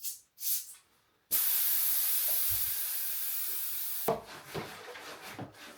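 Air hissing out of a bicycle inner tube's valve for about three seconds as the tyre is let down, starting suddenly and easing slightly before it stops. Light knocks and rubbing from handling the wheel follow.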